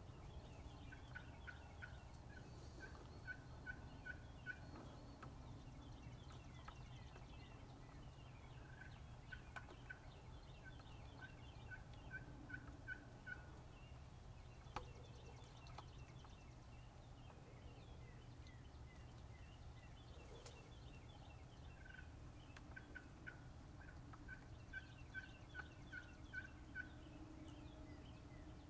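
Wild turkeys calling, faint: three runs of evenly spaced notes, two or three a second, each run a few seconds long, with fainter, quicker higher notes around them.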